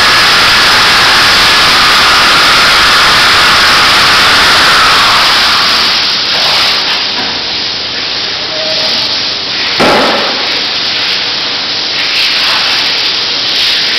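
Hand-held power skinning knife running with a loud, steady hiss, stopping about five seconds in. Quieter handling noise follows, with a short knock about ten seconds in.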